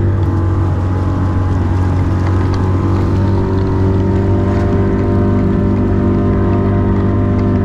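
Motorboat engine running steadily at an even pitch, with no change in speed.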